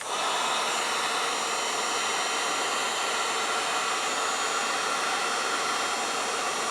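Electric heat gun switched on and running steadily, a constant rush of blowing air, shrinking heat-shrink tubing over a bullet connector.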